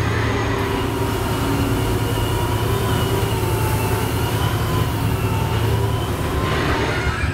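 Test Track ride vehicle running along its track: a steady low rumble with a faint, slightly wavering whine over it.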